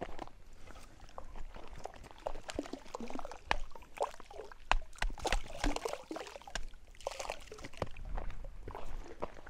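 Fish splashing and gulping at a pond surface as they feed on termites dropped into the water, a run of irregular small splashes and pops.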